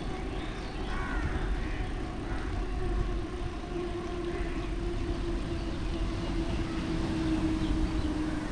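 Steady wind and road noise from riding a bicycle along a wet street, with a steady hum that grows stronger and drifts slightly lower in the second half, and a few short calls in the first two seconds.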